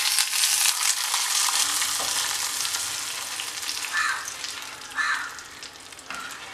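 Hot oil tempering of mustard seeds, dried red chillies and curry leaves sizzling as it is poured into a yogurt curry. The sizzle is loudest at first and slowly dies down, with a spoon stirring the tempering in.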